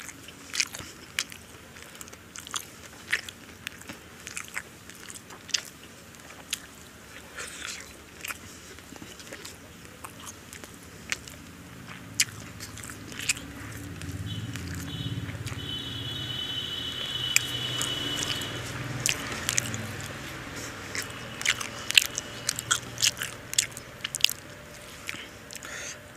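Close-miked chewing of mouthfuls of mutton biryani, with many sharp, irregular wet mouth clicks and smacks. A low rumble swells in the middle stretch and fades again.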